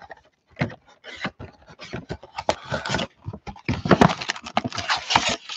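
Cardboard 2020 Donruss Optic trading-card box being opened and its foil card packs handled: a run of irregular crinkles, scrapes and rustles, loudest about four seconds in.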